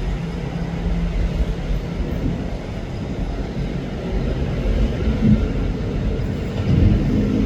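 Diesel train engine running with a steady low rumble and hum, getting louder near the end.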